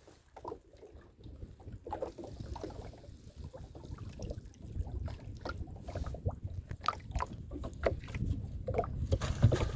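Small boat on the water: irregular splashes and knocks of water against the hull over a low, steady rumble, growing busier and louder toward the end.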